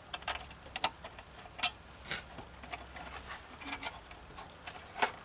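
Irregular sharp clicks and light knocks of a motorcycle's headlight and windscreen fairing being worked loose by hand, one knock louder about one and a half seconds in.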